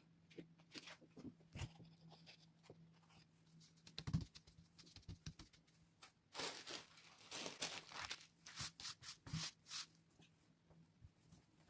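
Paper rustling as a sheet is laid over an inked lino block, with a knock about four seconds in. Then comes a run of short rubbing strokes, about two or three a second for some three seconds: the paper being burnished with a hand-held ball-bearing baren to take the print.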